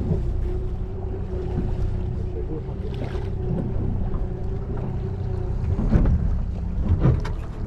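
Boat engine running steadily with a low, even drone, over wind and water noise. A couple of brief knocks come near the end.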